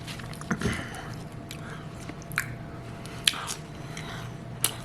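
A person chewing a mouthful of fried tilapia, with a few scattered short clicks of mouth and food noises over a low steady hum.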